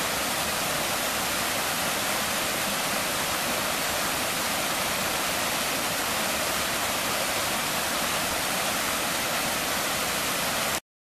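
Steady rushing of a mountain stream's cascading water, unchanging throughout, then cutting off abruptly near the end.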